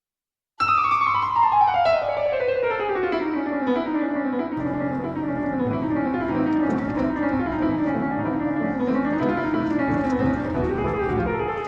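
Piano music that starts suddenly about half a second in with a long descending run, then settles into a steady accompaniment with low bass notes underneath.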